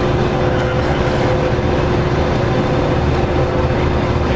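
Steady engine and machinery hum of a ship heard on deck: a low rumble with two steady tones.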